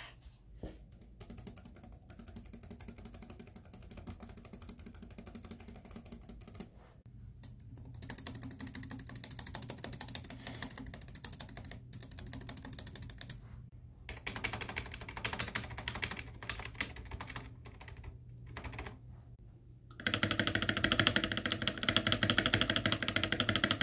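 Laptop space bar on a Lenovo ThinkPad tapped over and over, a fast run of soft clicks. About twenty seconds in, it switches to the space bar of a separate backlit keyboard, pressed repeatedly with louder, fuller clacks.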